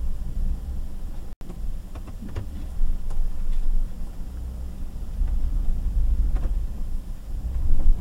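Vehicle engine running at low speed, heard from inside the cab, with a few sharp clunks from the drivetrain; the reverse gear of its transmission has failed.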